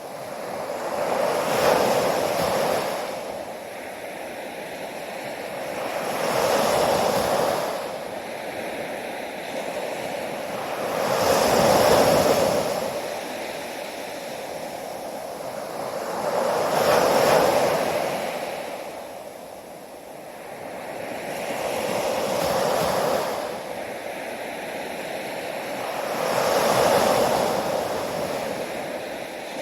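Ocean waves breaking. The surf swells up and washes back about every five seconds, six times in all.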